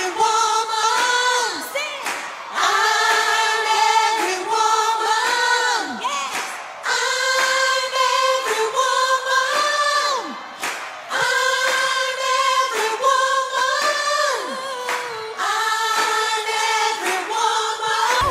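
Unaccompanied a cappella singing, with no instruments: held sung notes, each phrase ending in a downward slide.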